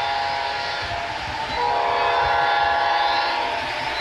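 Amtrak P42 diesel locomotive horn sounding a multi-note chord in long blasts: one ending about a second in, a second from about a second and a half to just past three seconds, and a third starting at the very end, over a steady low rumble of the running train.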